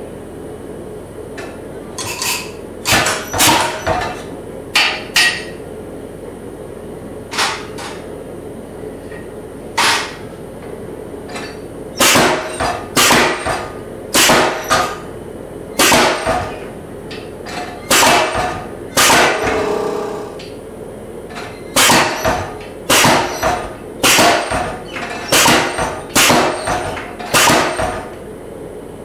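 MZ75 pneumatic power hammer striking red-hot 1144 carbon steel through its dies and a hand-held top tool, with sharp metal-on-metal blows. The blows are scattered at first, then come about one a second from the middle on, some in quick pairs. A steady low hum runs underneath.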